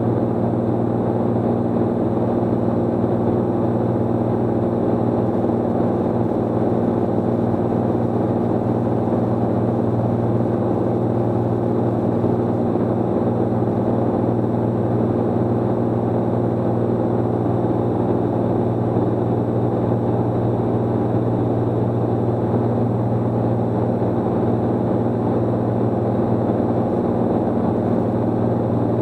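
Cirrus SR22's six-cylinder piston engine and propeller running steadily in flight, an even drone whose pitch does not change.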